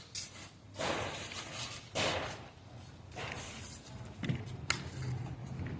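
Construction work: a few short scraping or thudding noises, then two sharp knocks about four and a half seconds in, followed by a low steady hum.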